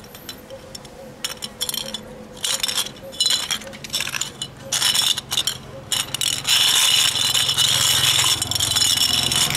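Small coloured LED bulbs with metal screw bases being set down, rolled and pushed together by hand on asphalt: scattered clicks and scrapes, turning into a steady clattering scrape about two-thirds of the way through.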